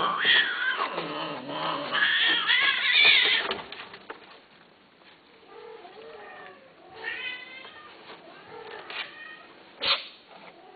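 Caged long-haired cats meowing and yowling: loud, drawn-out wavering calls for the first few seconds, then shorter, fainter meows. A sharp click comes near the end.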